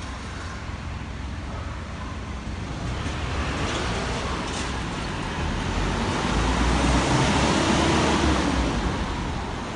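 A city bus drives past close by: its engine and tyres grow louder over several seconds, peak near the end and then ease off, over a steady hum of street traffic.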